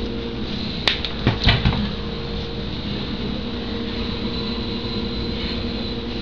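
A steady mechanical hum made of several even tones, with a few short knocks and clicks about a second in.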